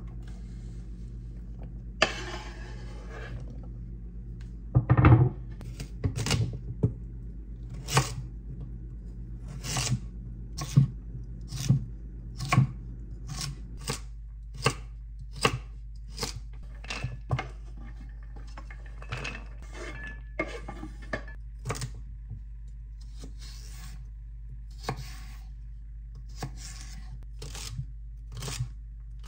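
Chef's knife chopping vegetables on a wooden cutting board: irregular sharp knocks, about one or two a second. About two seconds in, the knife scrapes diced potato off the board into a metal tray, and a louder thump follows about five seconds in.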